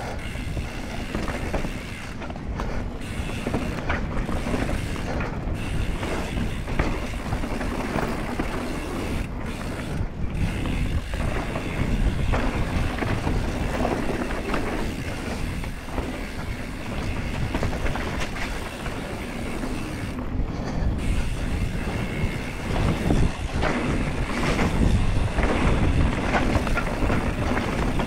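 Mountain bike descending a dirt forest trail at speed: a continuous rush and rumble of tyres rolling over dirt, roots and bumps, with the bike rattling and knocking all the way down.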